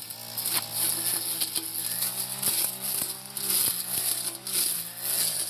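Four-stroke brush cutter engine running under load while cutting brush, its pitch wavering up and down, with scattered sharp clicks.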